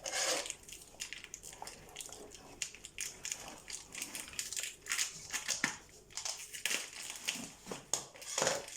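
Dog tearing and crinkling the wrapping off a present with its mouth, a run of irregular crackling and crumpling.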